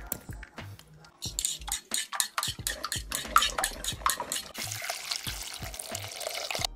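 Wire whisk beating eggs and sugar in a mixing bowl: rapid scraping and clicking strokes of the wire against the bowl, starting about a second in and growing denser and faster for the last two seconds.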